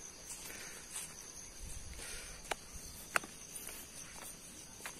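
Steady high-pitched insect chorus, with footsteps on a dirt and stone trail and two sharp clicks a little past halfway.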